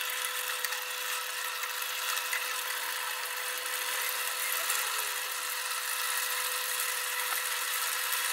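A steady high whir with a thin, unchanging whine runs under soft stirring of a thick, simmering coconut-milk sambal with a wooden spatula in an aluminium pot.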